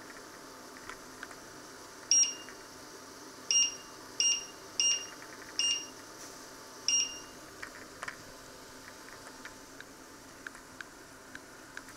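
Electric hob's touch-control panel beeping as its settings are tapped: six short beeps at uneven intervals, starting about two seconds in and ending about seven seconds in.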